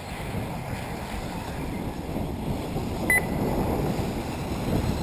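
Wind rumbling on the microphone, with a single short electronic beep about three seconds in.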